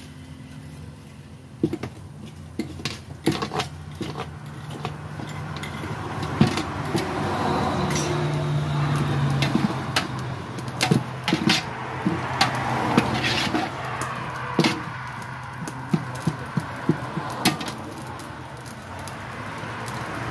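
Metal ladle clinking and scraping against a large aluminium stockpot while stirring food, with many sharp clicks and knocks, over a steady low hum.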